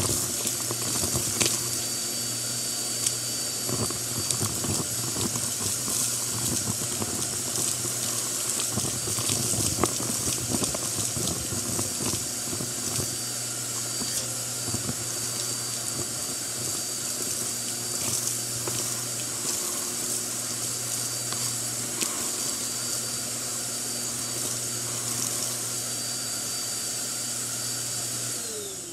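Bissell upright vacuum running, its hose attachment sucking up carpet lint while grit and small bits click and rattle up the hose, most of them in the first ten seconds. Just before the end the motor is switched off and winds down with a falling whine.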